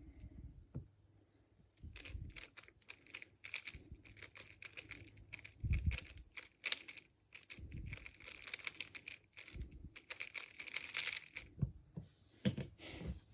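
Bluetooth speedcube being turned fast in a speedsolve: a dense run of quick plastic clicking and scraping layer turns, with short pauses between bursts, stopping about eleven seconds in.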